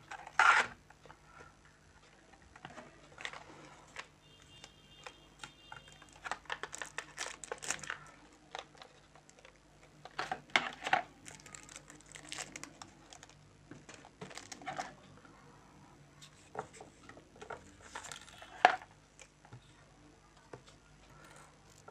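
Unboxing handling of a small cardboard box, a pen in a plastic sleeve and a paper instruction leaflet on a desk: scattered bouts of paper and plastic rustling and crinkling with light knocks, a louder burst just after the start and a sharp click a few seconds before the end.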